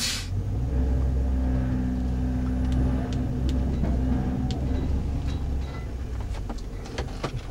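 Electric hydraulic pump motor of a Western straight-blade snowplow running steadily for about five seconds as the blade is angled from the in-cab controller, then stopping, heard from inside the truck cab. Scattered light clicks sound over it.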